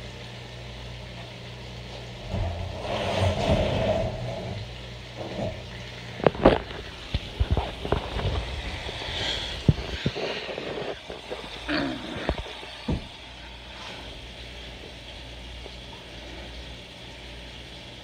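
Bacon frying in a pan over a steady low hum, with a run of knocks and clatter in the middle.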